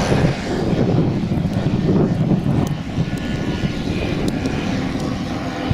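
Engine of a large-scale radio-controlled WWI replica model aeroplane running in flight, a steady low drone with a slight dip about three seconds in.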